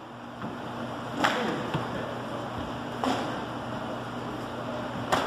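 Three sharp slaps of a karate block-and-punch drill, about two seconds apart, over a low steady room hum.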